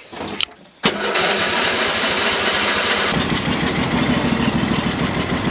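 A click, then a vehicle engine starts just before a second in and keeps running; about three seconds in its sound turns deeper and fuller.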